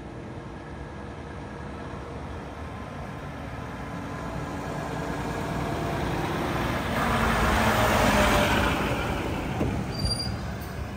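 Mack MRU garbage truck with a Heil PowerTrak rear-loader body driving up the street toward the listener, its engine and tyres growing louder as it approaches, loudest about eight seconds in, then easing as it slows. A short high brake squeal comes near the end.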